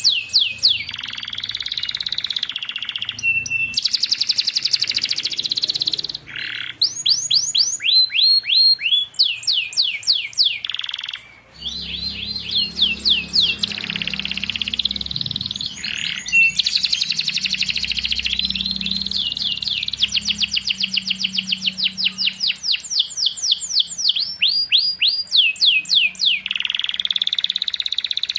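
Domestic canary singing a long, continuous song of rapid trills and runs of quick rising chirps, with only brief breaks. A faint low hum sits under the song from about halfway in.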